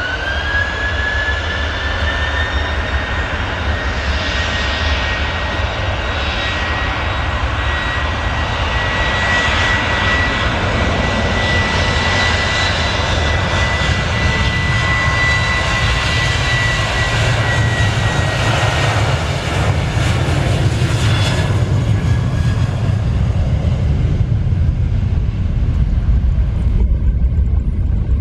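Boeing 737's CFM56-7B turbofan engines spooling up to takeoff thrust for the takeoff roll. A rising whine settles in the first couple of seconds into a steady high fan tone over a loud jet roar, and the low rumble grows heavier in the second half as the aircraft accelerates away.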